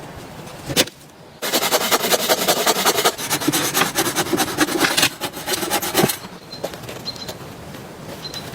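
Dense, rapid scraping and rustling, a rough rubbing noise full of quick clicks, starting suddenly about a second and a half in and stopping about three seconds before the end, after a single knock just before it.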